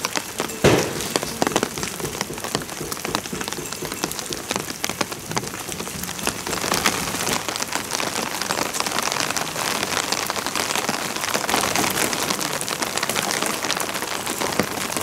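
Steady rain falling, with a dense patter of single drops striking hard surfaces close by, and one sharper knock a little under a second in.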